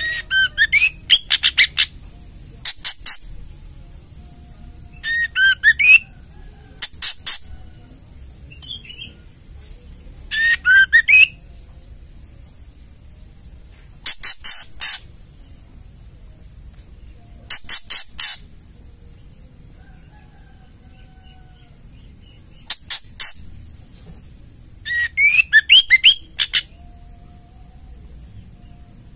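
White-rumped shama giving its ketrekan call: short bursts of rapid rattling clicks, some mixed with quick rising whistled notes, repeated about every two to four seconds.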